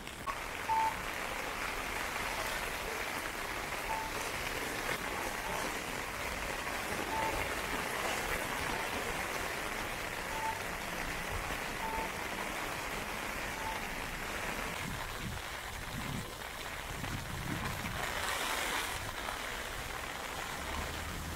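Heavy rain falling on streets and pavement, a steady hiss. A short electronic beep repeats about every one and a half seconds through the first part. Near the end a car passes, its tyres hissing on the wet road.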